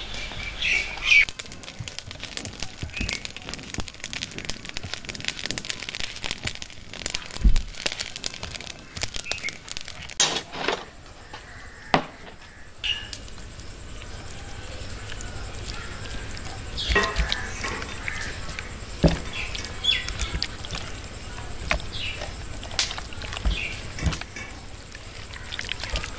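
Birds chirping now and then over wet squelches and clicks of hands working a thick marinade into chicken pieces in a steel bowl. A low hum joins the background about halfway through.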